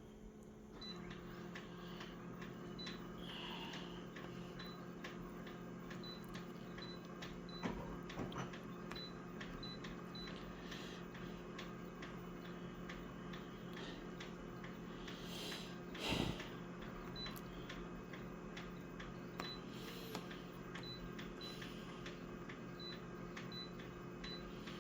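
A steady machine hum that starts about a second in, with fast, even ticking throughout and a few louder knocks, the loudest about two-thirds of the way through.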